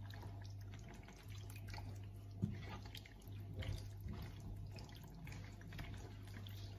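Rigatoni being stirred into a thick tomato and mince sauce in a frying pan with a spoon: soft wet squelches with scattered light clicks, one sharper tick about two and a half seconds in, over a steady low hum.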